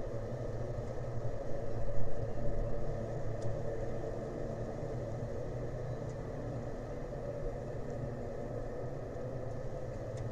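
Steady low engine rumble, briefly louder about two seconds in.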